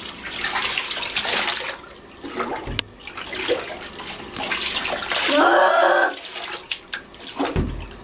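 Water running and splashing, like a tap filling a tub or sink, uneven with short lulls. A short cry stands out about five and a half seconds in.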